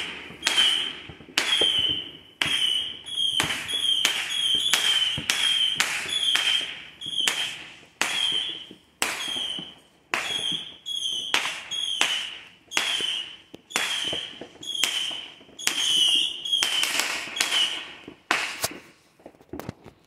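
Fireworks going off in a long, steady volley of sharp bangs, nearly two a second, each with a short ringing tail. Near the end the volley stops and a few quieter pops follow.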